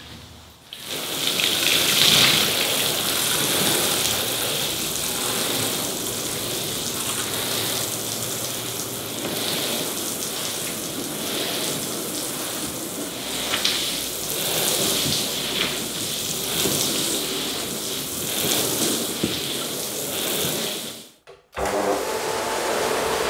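Shampoo and oxygen-booster cleaning solution sprayed onto a soaked rug: a steady hissing spray of liquid that swells now and then. Near the end it cuts off, and a counter-rotating brush (CRB) rug-scrubbing machine starts running with a steady hum.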